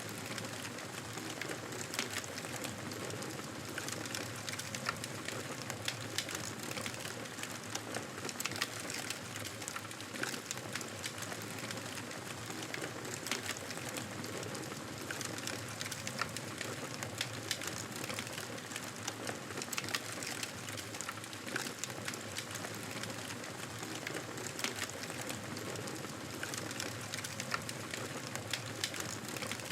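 Wood fire burning, a steady hiss with frequent irregular crackles and pops.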